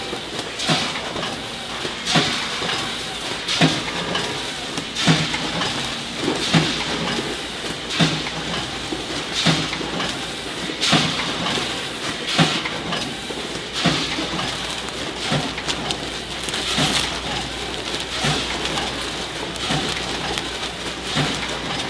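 Bosch SVB 2500 vertical form-fill-seal bagger, fed by an Ishida 14-head weigher, running a popcorn bagging cycle at about 40 bags a minute. A sharp clatter comes once per bag, about every second and a half, over a steady hiss of running machinery.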